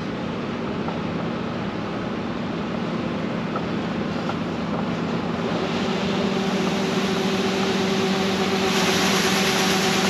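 John Deere 9670 STS combine running as it harvests soybeans, a steady machine hum that grows louder, with a broader hiss joining about nine seconds in.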